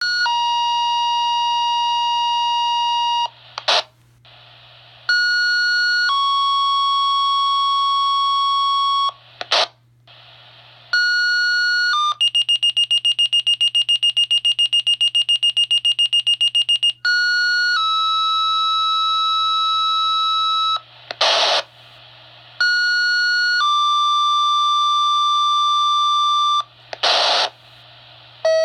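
Fire department two-tone sequential paging tones received over a radio. Repeated sets of a short tone followed by a long, steady tone of a different pitch, with a fast-pulsing alert tone in the middle of the run. A brief burst of static falls between sets, over a steady low hum.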